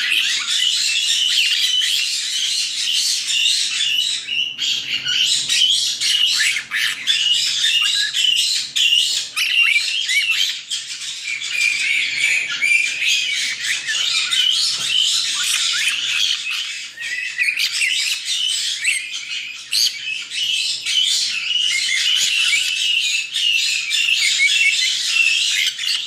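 A group of young white-bellied caiques chattering all at once: a dense, high-pitched din of overlapping calls that barely lets up.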